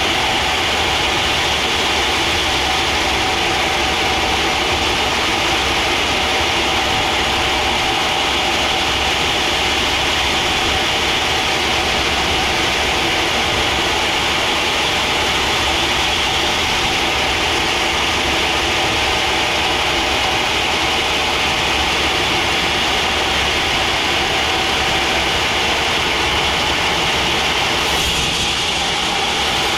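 Band sawmill running steadily, its blade sawing through a teak log, with a constant machine drone and a steady whine.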